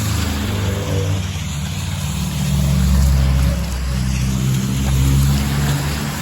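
Motor vehicles passing close by on a wet road: engines swelling louder twice, about three and five seconds in, over a steady hiss.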